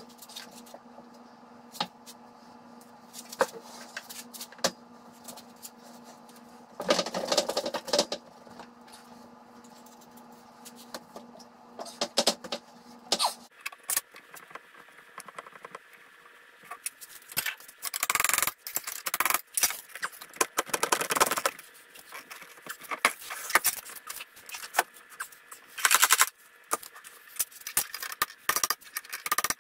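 Hand tools clinking, scraping and knocking against a metal power feeder while its mounting base is worked loose. The sounds come in irregular clusters of sharp metallic clicks and longer scrapes, with several hard knocks in the last few seconds as a hammer is brought in.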